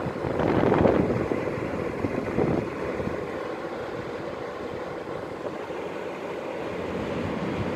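Air conditioning unit running: a steady rush of fan and blown air, louder for about the first second and then even.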